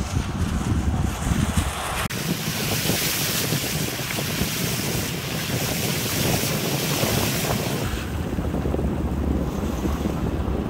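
Wind buffeting the microphone over the steady rush of floodwater. About two seconds in, the sound changes abruptly to a brighter, hissing rush. Near the end the low wind rumble comes back.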